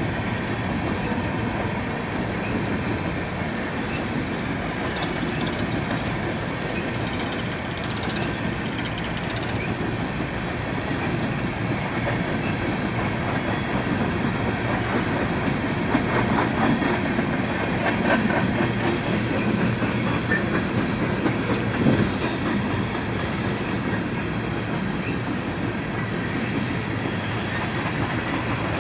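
Coal train's cars rolling steadily past, with the wheels clacking over the rail joints, a little louder about two-thirds of the way through.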